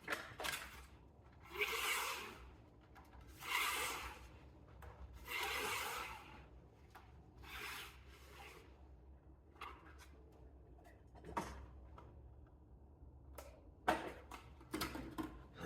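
Badminton string drawn through the racquet frame, four long rubbing swishes in the first half, then scattered light clicks and ticks.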